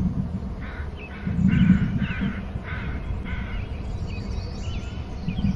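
A crow cawing, about six harsh caws in quick succession, over a steady low rumble.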